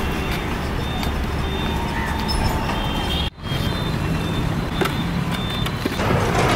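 Street traffic noise: vehicles running by with a steady low rumble and a few faint thin tones. The sound briefly cuts out about halfway through and grows louder and hissier near the end.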